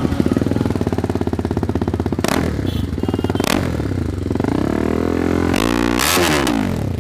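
TVS Apache RR310's single-cylinder engine running loudly through an aftermarket Akrapovic slip-on exhaust. It idles with two quick throttle blips, then a longer rev near the end that drops back to idle.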